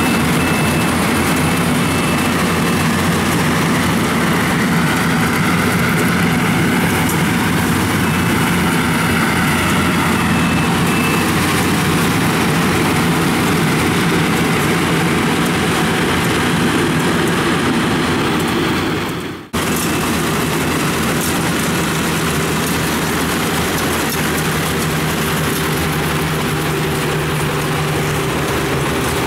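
Tracked Yanmar rice combine harvester running steadily under load as it cuts and threshes rice: a continuous diesel engine drone with the clatter of the machinery. The sound drops out for a moment about two-thirds of the way through, then carries on.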